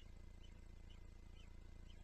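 Faint high chirps of small birds, about two a second, over a steady low hum.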